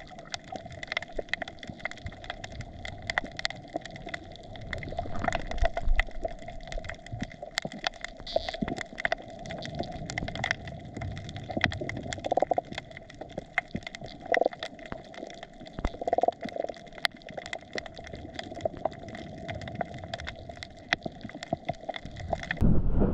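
Underwater reef ambience picked up by the camera: a dense, irregular crackle of clicks over a steady hum, with a few louder pops. Just before the end it changes suddenly to a low rumble.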